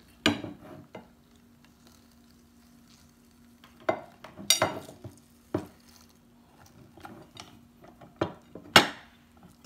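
Manual lever-press metal juicer squeezing pineapple and ginger: scattered metal clanks and knocks as the handle is pressed down and lifted, the loudest near the end, after a quiet stretch in the first few seconds. A faint steady hum lies underneath.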